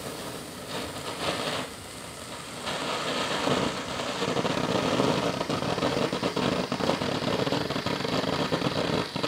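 Firework ground fountain (Dominator Mothership) firing: a steady, rough hissing spray of sparks that gets louder about three seconds in.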